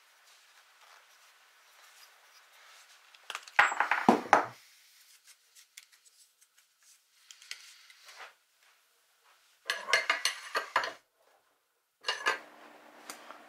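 Metal hand tools and a small brass pipe fitting being handled and set down on the workbench: clinks and clatter in four short bursts, the loudest about four seconds in.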